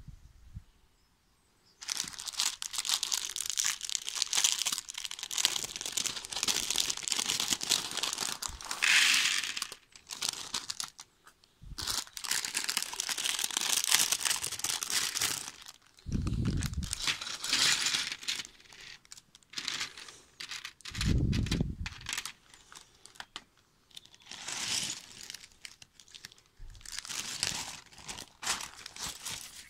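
Plastic parts bags crinkling and tearing as they are opened and handled, with small plastic building pieces tipped out into a clear plastic tray. The crackling comes in long spells with short pauses, and there are two brief low rumbles midway.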